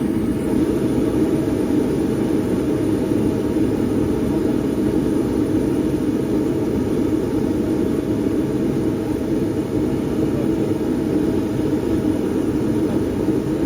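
A road vehicle travelling at a steady pace: a continuous, even engine and road rumble with no change in speed.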